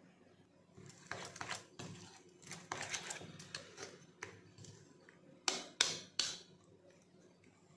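Steel spoon stirring and scraping a wet grated mixture in a bowl, in quick uneven strokes, followed later by three sharp clicks of the spoon against the bowl, the loudest sounds.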